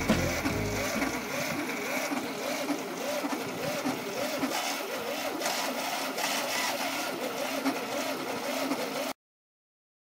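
Fiat 126's two-cylinder engine cranked on the starter on its first start after twenty years standing, coughing without catching. The pitch dips and rises about twice a second as it turns over, and the sound cuts off suddenly near the end.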